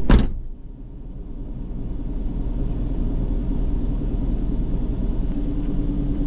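Camper van's engine idling with a steady low rumble, heard from inside the cabin, after a single loud thump right at the start; a steady hum joins about five seconds in.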